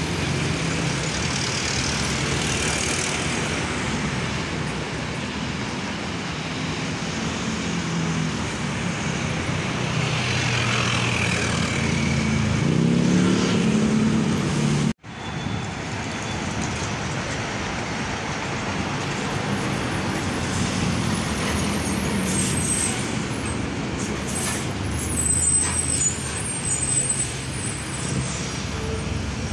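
Diesel container trucks passing on a busy road, their engines running, with general traffic and motorcycles around them. About halfway, one engine rises in pitch as a truck accelerates. A short, high air hiss like air brakes comes near the end.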